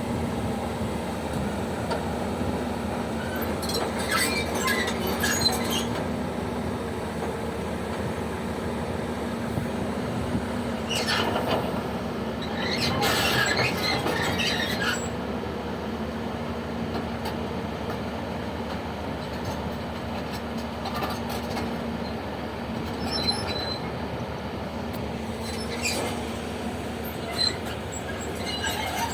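Heavy diesel machinery running steadily, with bursts of high-pitched grinding noise a few seconds in and again around the middle, and a few short clicks near the end.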